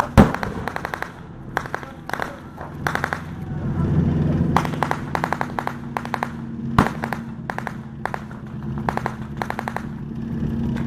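A loud bang at the start, then repeated short bursts of automatic gunfire firing blanks. Under them runs the steady hum of an M4 Sherman tank's engine as it drives, growing louder about four seconds in.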